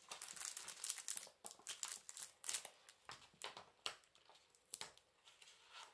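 Faint crinkling and rustling of paper craft materials being handled by hand: a dense run of small crackles in the first second and a half, then scattered crackles.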